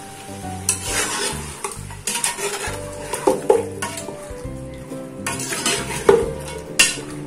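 Steel ladle stirring and scraping chunks of beef around an aluminium pressure cooker, knocking against the pot several times, while the meat sizzles in hot oil as it sears over a medium flame.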